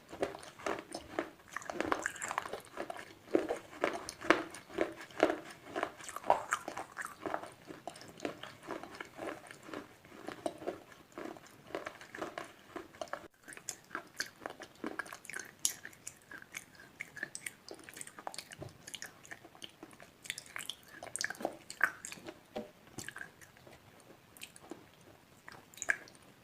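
Slate pencils being bitten and chewed: a rapid run of sharp, dry crunches, dense in the first half and sparser after a brief break about halfway.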